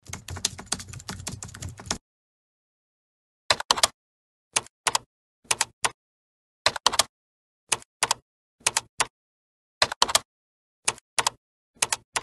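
Keyboard-typing sound effect: a fast run of key clicks for about two seconds, then, after a short silence, little groups of two or three key clicks about once a second.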